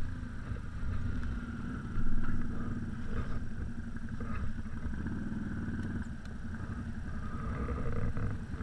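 ATV engine running steadily at low speed, a low drone with some haze over it.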